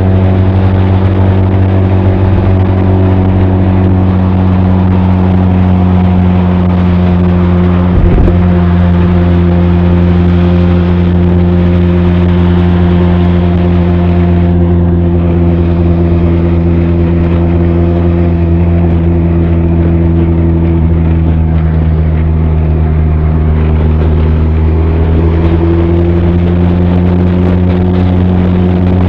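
Benelli TRK 502's parallel-twin engine and exhaust running at a nearly steady cruising speed, picked up close to the exhaust from inside a saddlebag. The engine note shifts slightly in pitch about 21 seconds in. There is a brief thump about 8 seconds in.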